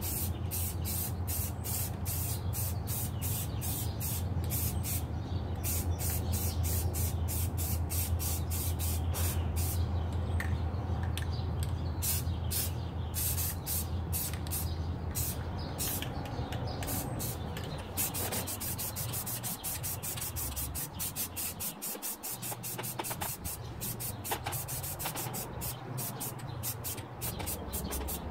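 Aerosol spray-paint can hissing in quick short bursts, laying down a light base coat of paint, over a steady low hum that drops away about two-thirds of the way through.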